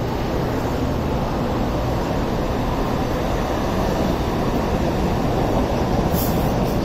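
Hong Kong Light Rail train running past, a steady low rumble with a brief high hiss near the end.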